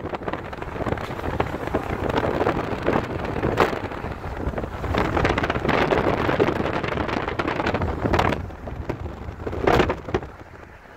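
Wind rushing and buffeting the phone's microphone through an open car window while driving, over the rumble of the car on the road. It eases off near the end.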